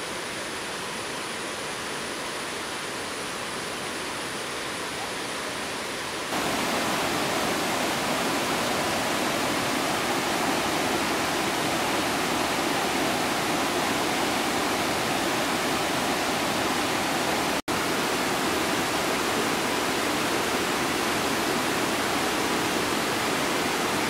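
Rushing water at first, then about six seconds in it jumps to the louder, steady roar of a monsoon-flooded waterfall, with muddy water crashing over rocks. A thin high steady tone sits over the quieter opening part. The sound cuts out for an instant about two-thirds of the way through.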